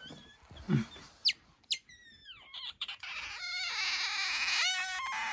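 Asian small-clawed otter calling: a few short, sharp high chirps, some falling in pitch, then from about three seconds in a loud, continuous, high-pitched squeak that wavers.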